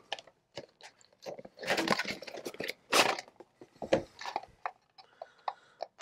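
Handling noises: scattered light clicks and short rustles and scrapes, with quiet gaps between them.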